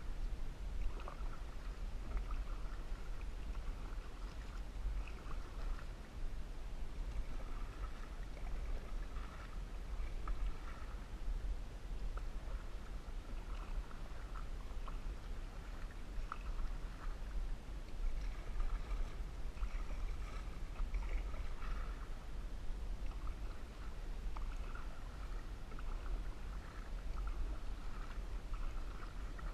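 Canoe paddle strokes, the paddle swishing and dripping in lake water every second or two, over a steady low rumble.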